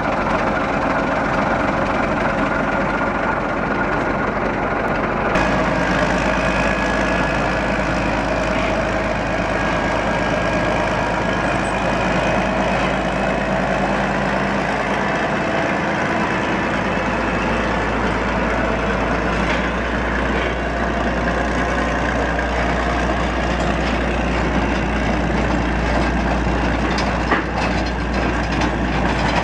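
Diesel engine of a small narrow-gauge locomotive running steadily as it pulls a short train of wagons.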